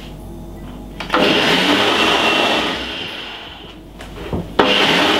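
Electric blender running on a banana-and-milk smoothie: it starts about a second in, runs for a couple of seconds and winds down, then starts again sharply near the end.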